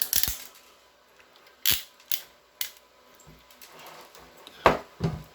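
RJ45 crimping tool squeezed shut on a network cable connector, giving a series of sharp mechanical clicks and snaps, the loudest near the end.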